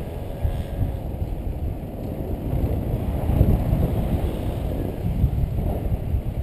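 Wind buffeting an action camera's microphone in paraglider flight: a steady low rumble with irregular gusts, a little stronger around the middle.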